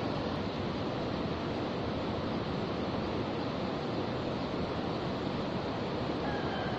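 Steady rushing of a shallow river flowing over stones, an even wash of water noise.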